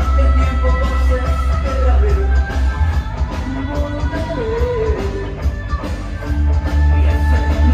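Loud recorded dance music played over a party DJ sound system, with a heavy bass line, a steady beat and melody lines. The bass eases off for a few seconds in the middle and comes back strong near the end.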